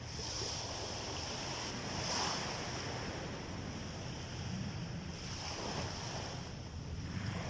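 Sea waves breaking and washing up a beach, the surf swelling three times, over a steady low rumble.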